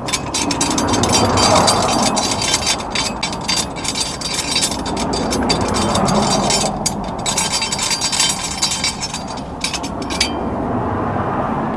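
Hand ratchet clicking rapidly in repeated strokes, metal on metal, while the heat-shield bolts under a Subaru WRX are worked loose; the clicking stops for short moments and thins out near the end.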